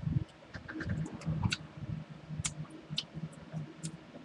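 Close-up chewing of a sticky coffee toffee: wet mouth clicks and smacks at irregular intervals, with soft low thumps of the jaw working.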